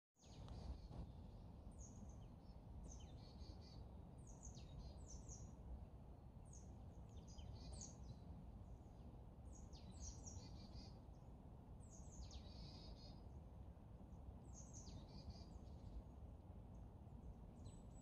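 Wild birds calling: short, sharp high notes that sweep down in pitch, some harsh and scratchy, repeated in clusters every couple of seconds over a steady low rumble.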